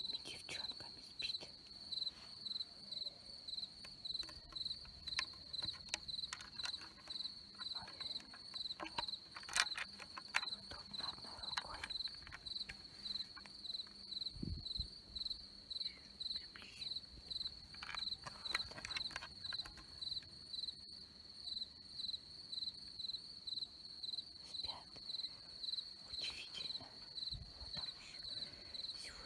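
Crickets chirping steadily, a high chirp repeating in an even rhythm, with a few faint knocks and rustles scattered through it.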